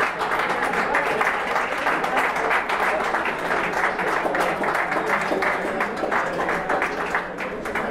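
Audience applauding: a dense, irregular run of hand claps that stops near the end.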